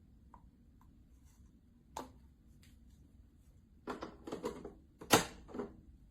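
Several sharp clicks and knocks of something hard being handled: one about two seconds in, a quick run of them near four seconds, then the loudest knock just after five seconds and one more right after it.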